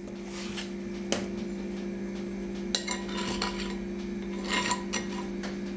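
Stainless steel half-cup measuring cup scooping flour from a metal canister, with several light clinks and scrapes of metal on metal. A steady low hum runs underneath.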